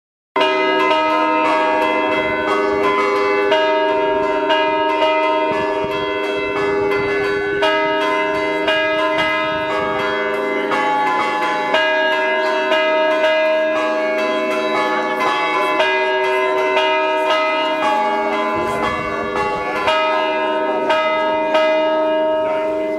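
Church bells ringing from the tower, struck over and over about once a second, their long ringing tones overlapping.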